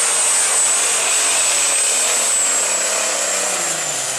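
John Deere open super stock pulling tractor's turbocharged engine at full power dragging the weight sled: a loud, steady engine noise with a high whine over it. A lower engine note starts to drop near the end.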